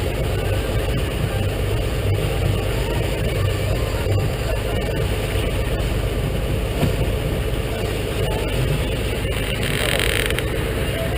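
Fishing boat's engine running steadily under way, with a constant rush of wind and water. A brief hiss about ten seconds in.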